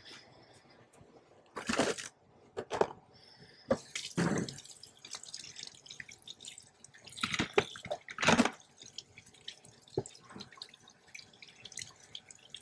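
Water from a kitchen faucet splashing over freshly shucked oysters held under the stream, spattering unevenly as the shells are turned, with several short louder splashes or knocks.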